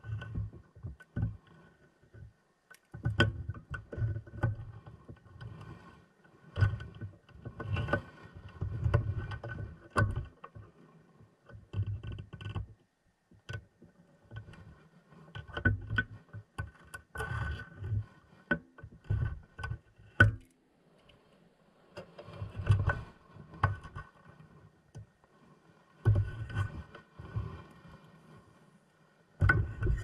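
Irregular thuds, knocks and scrapes carried through an underwater camera housing as a large deep-sea shark bites and tugs at the bait canister and arm of a baited remote underwater video rig. The knocks come in clusters with short quiet gaps.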